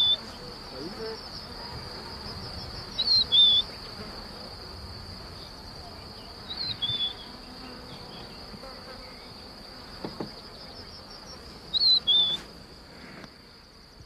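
Grassland ambience: a steady high-pitched insect trill, with a bird giving a short two-note call every three to five seconds.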